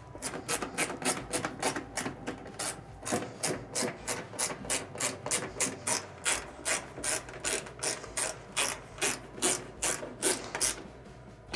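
Ratchet clicking evenly, about three clicks a second, as it turns screws back into the washer's top and console; the clicking stops about a second before the end.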